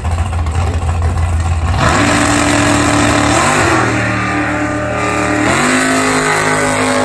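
Drag car's engine rumbling on the starting line, then launching at full throttle about two seconds in and pulling hard down the strip. The engine note drops and climbs again twice as it shifts gears.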